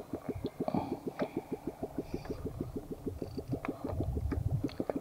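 Small boat engine idling, a steady even chug of about eight beats a second.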